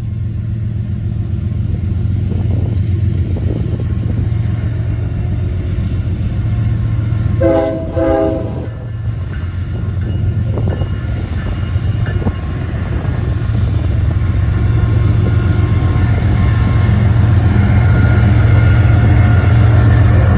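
Union Pacific manifest freight train's diesel locomotives running with a steady low rumble, with two short blasts of the locomotive air horn chord about seven and a half seconds in. The rumble grows louder toward the end as the train draws nearer.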